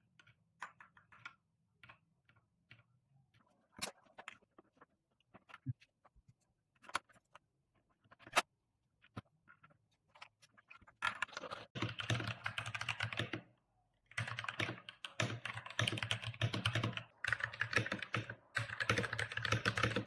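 Typing on a mechanical keyboard: scattered single keystrokes at first, then fast continuous typing from about eleven seconds in, with a few short pauses.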